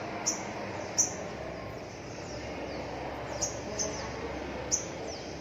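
Small bird giving short, high chirps, each one quickly falling in pitch, about half a dozen scattered over a few seconds.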